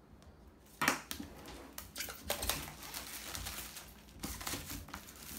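Clear plastic shrink wrap crinkling as it is peeled off a cardboard laptop box and crumpled, starting suddenly about a second in.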